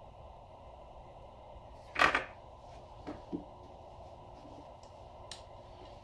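A large steel axle nut cracks loose under a long breaker bar with one loud, sharp crack about two seconds in. Two lighter metallic knocks follow about a second later, and a faint click near the end.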